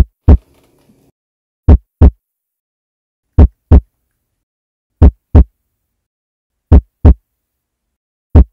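Heartbeat sound effect: deep double thumps, lub-dub, repeating slowly about every second and a half to two seconds.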